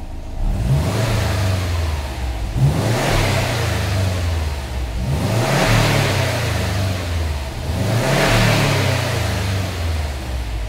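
Subaru Impreza WRX STI's turbocharged flat-four engine revved about four times on its original exhaust, each rev rising and settling back. It sounds flat and quiet: 'absolutely pants', not like a Subaru, in the fabricator's words, which is why a full custom exhaust system is being built.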